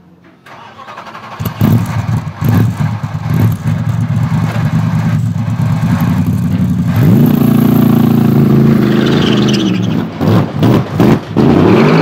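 Mercedes SLS AMG GT3 race car's 6.2-litre V8 being started: it catches about a second and a half in with a few sharp blips of the throttle, then idles. About seven seconds in the engine note rises as it revs and pulls away, with a few quick blips near the end.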